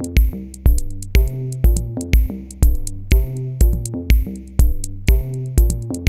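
Electronic background music with a steady drum-machine beat, about two kicks a second, over synth bass and chords.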